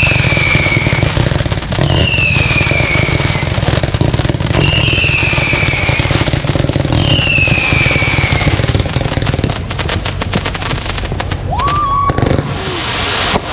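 Ground-launched fireworks barrage firing rapid shots with dense crackling, and four falling whistles about a second long each. The firing thins out after about nine seconds, with a short rising whistle and a hissing burst near the end.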